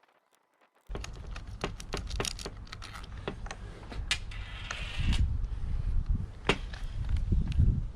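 Hands working on a motorcycle's tail parts and indicator wiring: a rapid, uneven run of small plastic and metal clicks, taps and rattles over low thuds. It starts abruptly about a second in, after near silence, and there is a short scraping sound near the middle.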